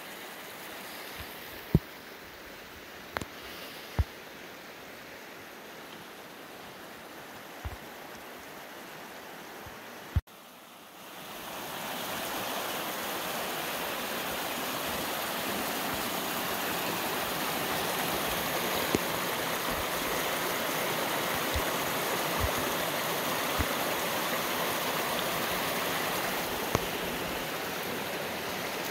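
Small rocky mountain creek rushing steadily, pouring out of a corrugated metal culvert. For the first ten seconds it is faint, with a few sharp knocks; after a cut it is much louder.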